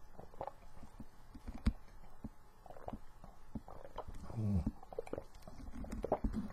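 A person tasting a cup of iced tea: scattered small clicks and knocks from handling the cup and straw, with a brief low throat sound, like a swallow, about four and a half seconds in.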